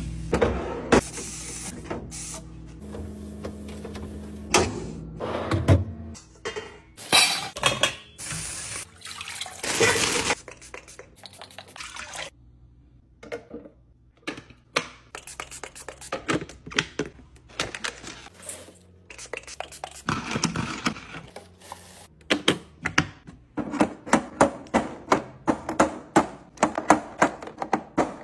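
Close-up kitchen restocking sounds: a cloth rubbing on a glass fridge shelf, water running for a few seconds, and clear plastic containers knocking and clicking on a counter. Near the end, eggs are set one after another into a clear plastic egg tray, a quick run of small clicks about three a second.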